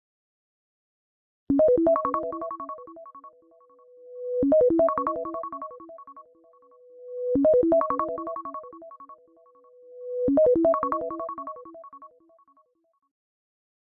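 An iOS 17 iPhone ringtone: a short melodic phrase played four times, about every three seconds, with a held tone swelling in before each repeat. It starts after about a second and a half of silence and stops well before the end.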